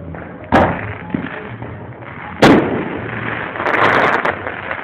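Fireworks going off: two sharp bangs about two seconds apart, the second the louder, then about a second later a burst of dense crackling as a golden crackling shell breaks overhead.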